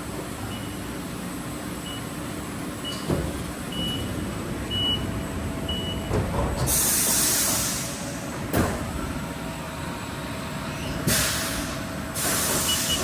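Haas VF-4SS vertical machining center running a demo program: steady machine noise with a row of short high beeps in the first half, sharp knocks about three and eight seconds in, and two bursts of loud hissing, the second near the end.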